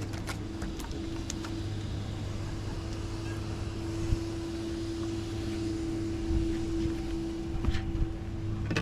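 A steady low motor hum with a constant pitch, swelling slightly past the middle, with a few faint clicks on top.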